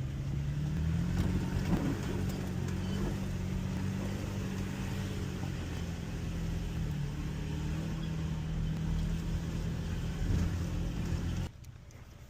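Off-road vehicle's engine running as it drives, its pitch rising over the first couple of seconds and dipping slightly about seven seconds in, then cutting off abruptly near the end.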